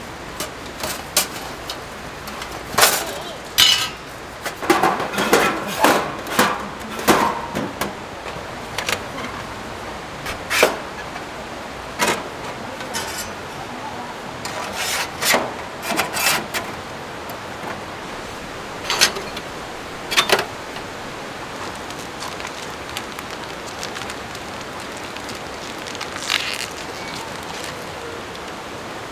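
Metallic clanks and clatters of a folding steel firebox stove being unpacked and its panels fitted together. The knocks come thick and fast in the first half, then only a few single knocks, over a steady rush of running water.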